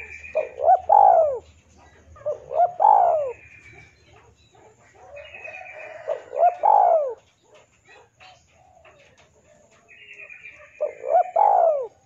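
Spotted dove cooing: four phrases a few seconds apart, each two short notes followed by a longer, rising-then-falling one.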